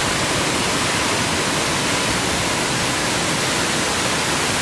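Waterfall in full flow, cascading down over several rock tiers: a steady rush of falling water.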